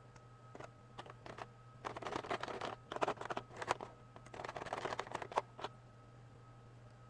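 Handling noises: scattered clicks, then several bursts of crackling and clicking over about three seconds, with a last couple of clicks, typical of plastic toy parts or packaging being handled. A steady low electrical hum runs underneath.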